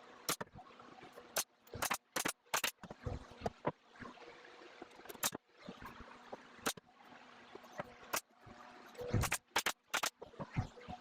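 Small nail gun driving 1-1/4 inch nails into wood: about a dozen sharp shots at uneven intervals, several in quick succession around two seconds in and again near the end.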